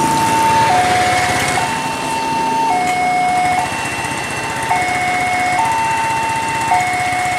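Level-crossing warning alarm sounding from the signal post: an electronic two-tone alarm alternating between a higher and a lower note, each held for about a second, signalling that a train is approaching and the barriers are closed.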